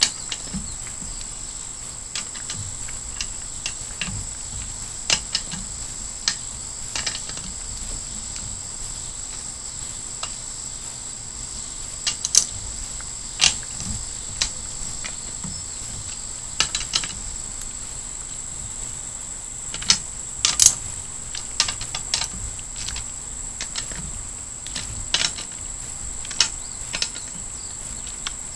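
Scattered, irregular metallic clicks and clinks of a ratchet wrench and socket as camshaft bearing cap bolts on a cylinder head are turned down a little at a time, over a steady high-pitched tone.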